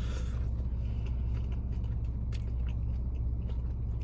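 Steady low hum of a car's idling engine heard from inside the cabin, with a short rustle at the start and scattered light clicks and rustles of a wrapped sandwich being handled.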